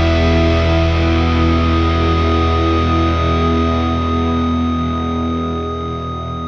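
Background music with distorted electric guitar and held notes, fading out near the end.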